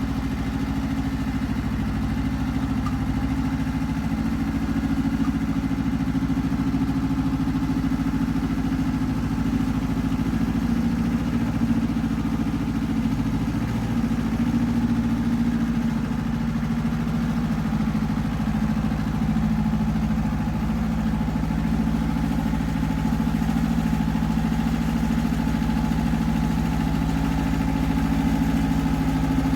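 Iseki TX1300 compact tractor's diesel engine running steadily at a constant pitch while pulling a plough.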